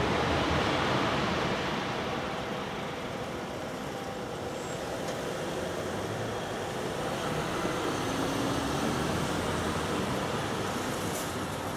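An electric regional express train's running noise dies away over the first few seconds as it leaves the level crossing, then road traffic: cars driving over the crossing and past.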